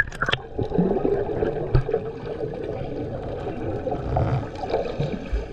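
Muffled water noise of a camera held just under the sea surface, with a few sharp splashes right at the start as it dips in, then a steady underwater swirl and bubbling.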